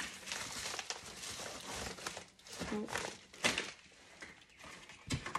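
Wreath mesh and craft materials rustling as they are moved about by hand, uneven in strength, with a few small knocks.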